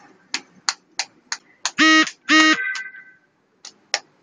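Small handheld phone sounding two loud, short, steady electronic tones in quick succession about two seconds in, the second trailing off in a thinner higher tone, amid a run of quick clicks, about three to four a second.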